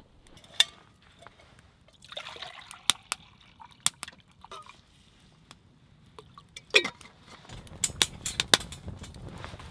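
Water poured from a stainless steel bottle into a steel camp mug, with sharp metal clinks. In the last couple of seconds, a small wood fire in a folding firebox stove crackles as twigs are fed in.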